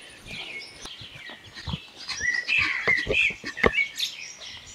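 Birds chirping with many short calls, busiest from about two seconds in, mixed with a few sharp clicks or knocks.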